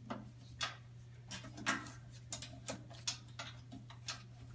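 Irregular light clicks and rustles from hands pulling, looping and tying baler twine, over a steady low hum.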